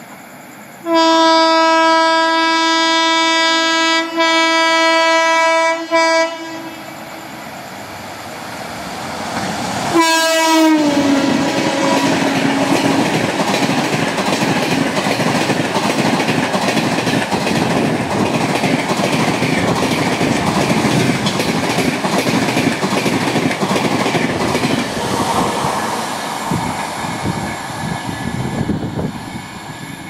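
Indian Railways express train horn: a long blast of about five seconds with a brief dip near its end, then, about ten seconds in, a short second blast that drops in pitch as the locomotive passes at about 110 km/h. The LHB coaches then rush past for nearly twenty seconds with rail clatter, easing off near the end.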